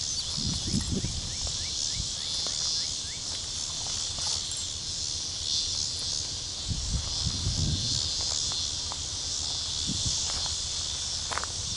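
A steady high-pitched chorus of insects in summer grass. In the first three seconds there is a quick run of short rising chirps, and low rumbles come and go, most around the middle.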